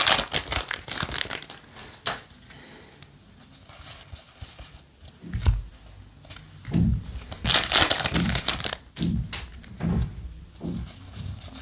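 Foil booster-pack wrapper crinkling as it is opened and handled, loudest at the start and again a little past the middle. Between these come softer rustles and taps of trading cards being flipped through.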